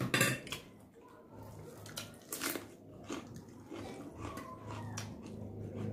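A person chewing food close to the microphone, with wet mouth smacks and short crunchy bites. The loudest bites come right at the start and about two and a half seconds in.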